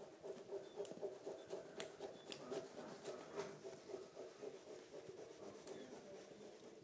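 Faint rubbing and crinkling of adhesive reflective foil tape being smoothed by hand onto a satellite dish, with scattered small crackles.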